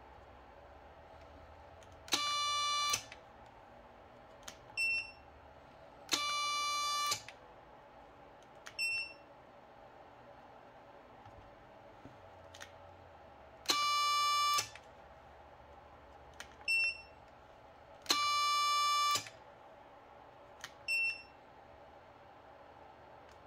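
Electronic tones from a servo torque-testing rig: four buzzing tones of about a second each, every one followed a few seconds later by a short, higher-pitched beep.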